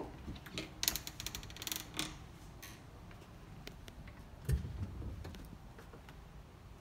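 A quick run of light clicks and rattles, then a single dull thump about four and a half seconds in, from handling things in a wooden cabinet.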